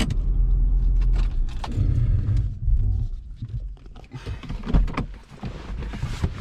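Vehicle engine running with a steady low rumble that drops away about three seconds in, followed by scattered clicks and knocks.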